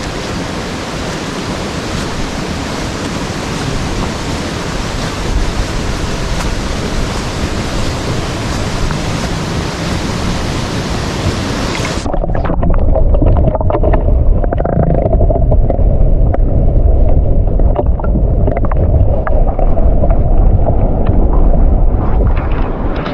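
Rushing water of a waterfall, a loud steady roar. About halfway through it changes abruptly to a louder, lower, duller rumble with wind buffeting the microphone.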